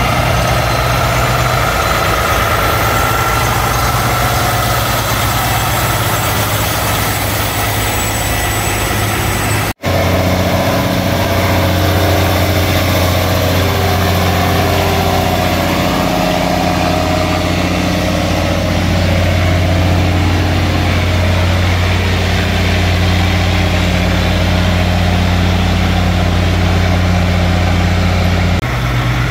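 Heavy diesel semi-truck tractors running at low speed as they roll past one after another, a steady low engine drone. The sound breaks off for an instant about ten seconds in, then comes back as a deeper, louder drone.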